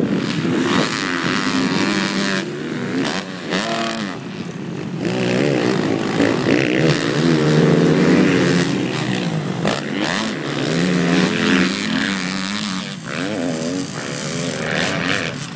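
Motocross dirt bike engines revving, the pitch rising and falling over and over as the riders open and close the throttle around the track.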